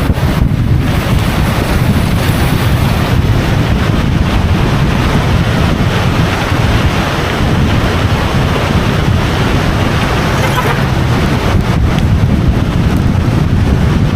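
A vehicle on the move, with heavy wind buffeting on the microphone over a steady low rumble of engine and road noise.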